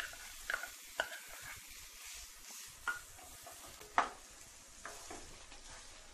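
Chopped onions frying in oil in a non-stick kadhai: a faint, steady sizzle, with a spatula stirring and knocking against the pan every so often, loudest about four seconds in.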